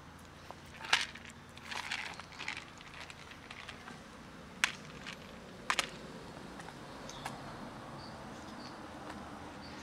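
Plastic food box with dry cat kibble being handled and set down: short clicks and rattles, a sharp one about a second in, a cluster around two seconds, then a few single clicks.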